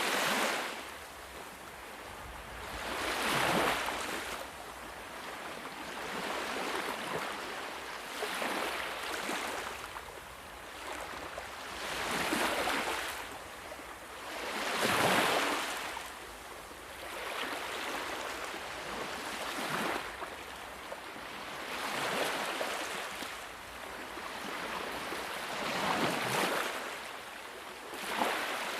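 Sea waves washing onto a shore, a surge of surf swelling and ebbing every few seconds, the loudest about halfway through.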